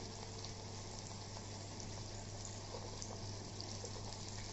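Hot oil sizzling and bubbling steadily around a bhatura deep-frying in a kadhai, with small scattered crackles, over a low steady hum.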